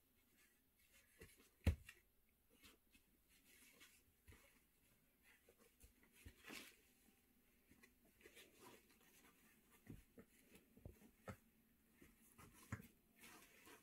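Faint scattered rustling and small knocks as an English Bulldog puppy shifts and rolls on training pads among its toys, with one sharper knock about two seconds in.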